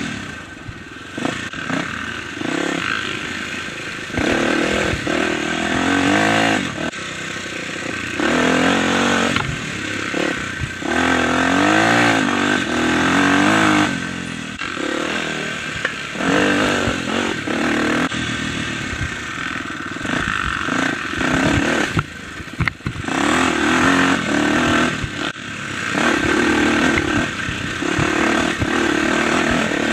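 Dirt bike engine revving up and down over and over as the throttle is worked along a rough trail, with scattered knocks and rattles throughout.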